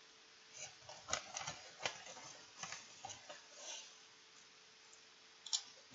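Potato chips crunching as they are chewed close to the microphone: a quick run of crisp cracks for about three seconds, then one more sharp crack near the end.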